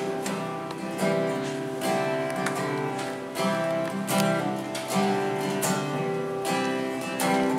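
Acoustic guitar strumming chords in an instrumental passage of a live folk song, with no singing, the strokes coming at a steady rhythm of roughly one a second.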